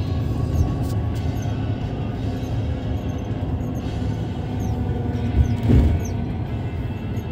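Steady road rumble of a moving vehicle heard from inside it at highway speed, with music playing faintly underneath. A brief louder thump comes about five and a half seconds in.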